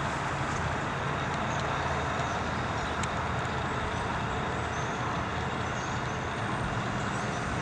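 Steady outdoor background rumble and hiss with a low hum underneath, constant throughout with no distinct events.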